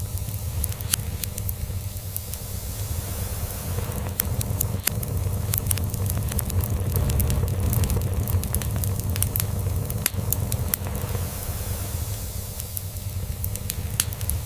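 Log fire crackling, with frequent sharp pops and snaps, over a cat's low, steady purring.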